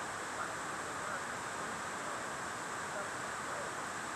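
Steady hiss of background room noise, with a few faint, indistinct sounds in it.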